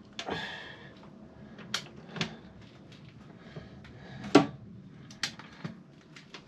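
Scattered metallic clicks and knocks from hand tools working on a motorcycle's rear wheel axle nut, the loudest knock about four seconds in.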